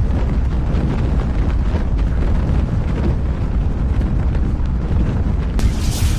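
Strong wind buffeting the microphone: a steady deep rumble with hiss above it, the hiss growing louder about five and a half seconds in.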